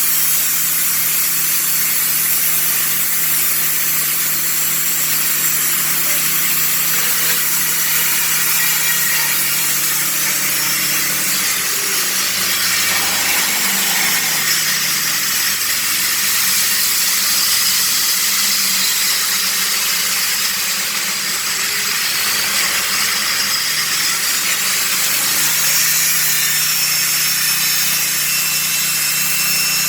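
A sawmill's Honda petrol engine running steadily. For about a dozen seconds mid-way its pitch wavers and drops as it comes under load, typical of the blade cutting through a log, then it settles back to a steady run.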